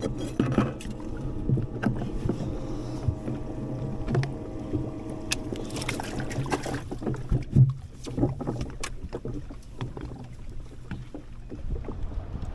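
Sounds of handling gear on a fishing boat: a steady motor hum that fades out after about seven seconds, with scattered knocks and clicks, the loudest knock about seven and a half seconds in.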